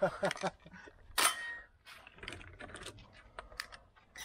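Light metallic clicks of a shotgun and its cartridges being handled between shots, with a sharper noisy crack about a second in.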